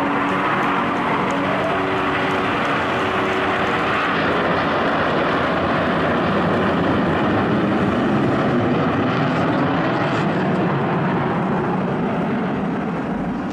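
Jet aircraft of an aerobatic display team flying, heard as a loud, steady rush of jet engine noise.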